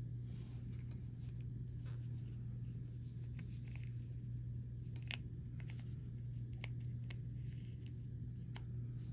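Small sharp clicks and light rustling of hands handling a small plastic blind-box figure, its accessory pieces and packaging, a few scattered clicks, over a steady low hum.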